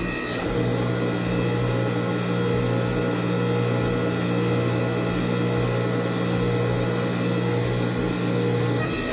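Hydraulic forging press's motor and pump running with a steady hum, without a break or a separate blow.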